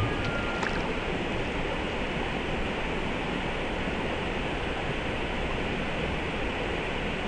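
Creek water rushing, a steady, even hiss with no rhythm.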